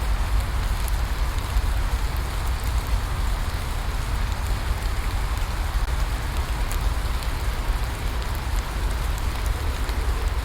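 Steady rain falling, a continuous even hiss with a deep rumble underneath and scattered faint drop ticks.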